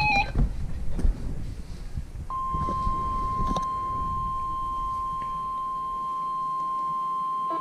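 NOAA Weather Radio's 1050 Hz warning alarm tone: a single steady beep-like tone that starts about two seconds in and holds, the signal that a warning broadcast is about to follow. Before it, low rumbling noise from the receiver.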